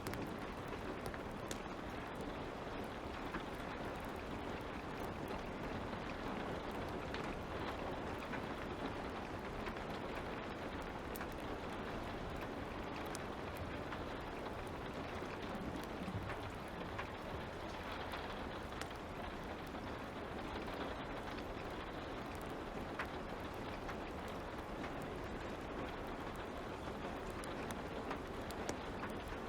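Light rain falling steadily, with scattered small pops and crackles of a wood fire.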